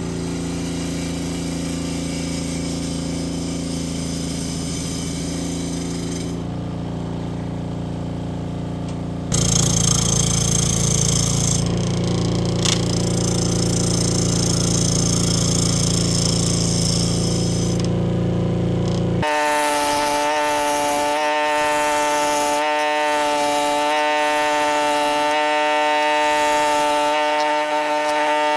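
Power tools running on walnut wood in three stretches that change abruptly about 9 and 19 seconds in. The first two are a steady, lower machine hum. The last is a steady, high-pitched motor whine.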